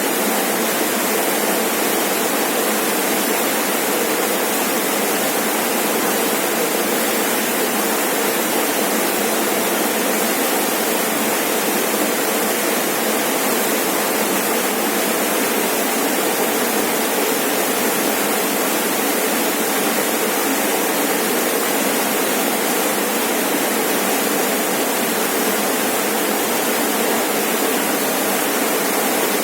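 Rainforest waterfall pouring steadily, a constant even rush of falling water with no changes.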